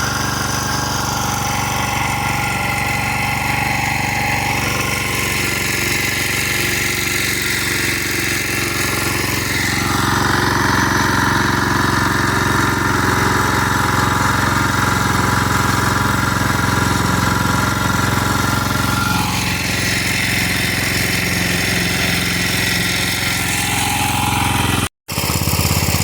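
Irrigation pump-set engine running steadily, with a brief cut-out near the end.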